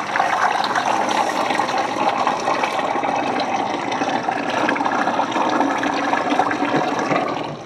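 Thick white emulsion paint gushing from a mixing tank's outlet valve and spout into a plastic-lined bucket. It starts abruptly, runs steadily and cuts off near the end.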